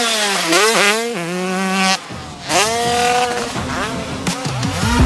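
An 85cc two-stroke dirt bike's engine revving hard as it rides, with the pitch dropping and climbing again several times under throttle changes and shifts. It dips briefly about two seconds in, then revs up again.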